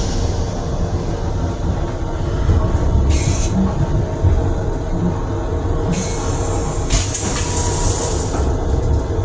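Metro-North M7 electric multiple-unit railcar running, its steady rumble heard from inside the car's restroom. Short hisses come and go, about three seconds in and again around six to seven seconds.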